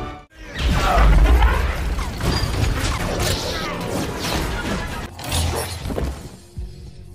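Action-film sound effects: a dense mix of crashes, whooshes and metallic clanking with deep booms, over score music. It starts after a brief drop at the beginning and thins out near the end.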